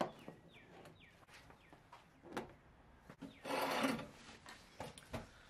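Hard plastic case being handled on a wooden railing: a few knocks as it is set down, and a brief scrape of it sliding on the wood about three and a half seconds in.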